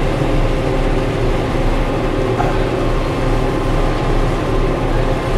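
John Deere cotton picker running steadily while picking, heard from inside its closed cab: a constant engine and machinery hum with a few steady tones and no change in speed or load.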